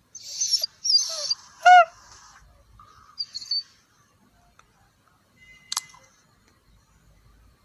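A string of short electronic sound effects: two brief hissy bursts, then a loud chirp about two seconds in, a short blip, and a single sharp click a couple of seconds later.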